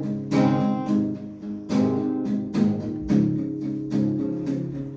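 Acoustic guitar strumming chords, a new strum about every half second to second.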